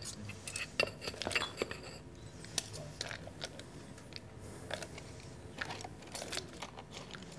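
Scattered light clinks and clicks of glassware and metal utensils being handled while a cold tea cocktail is prepared and poured.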